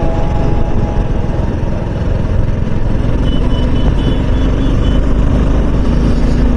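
Motorcycle underway on a road: engine and road noise under heavy wind rumble on the microphone. A run of short high beeps sounds about halfway through.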